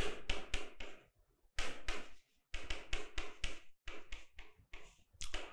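Handwriting on a green board: quick taps and scratches of the writing stick against the board in four short runs of strokes, with brief pauses between them.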